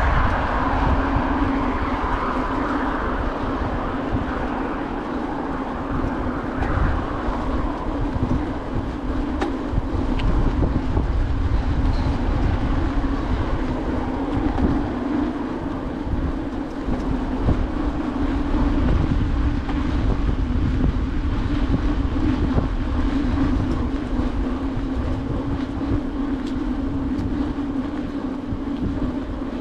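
Bicycle ride over a paved path: wind buffeting the camera microphone as a steady low rumble, with a constant hum and rattle from the tyres rolling over the paving. The hiss is brighter in the first few seconds.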